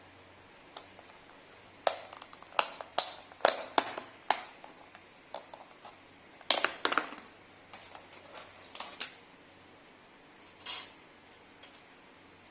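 Eating sounds: a series of sharp crunches and clicks from biting and chewing crisp fried food, with cutlery clicking on a plate. There is a dense run of crunches a couple of seconds in, another cluster past the middle, and a short scrape near the end.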